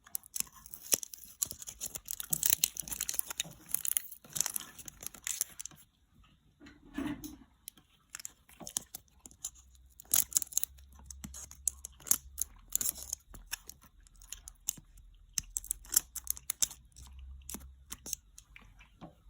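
Packaging being torn open and crinkled by hand: a dense run of tearing and crackling for about the first six seconds, then scattered crackles and clicks.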